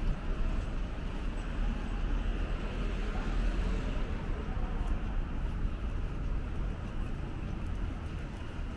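Steady city street ambience: an even, low rumble of distant traffic.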